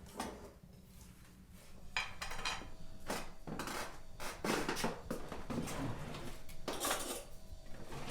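Kitchen clatter of dishes and cutlery: irregular clinks and knocks that start about two seconds in after a quieter moment.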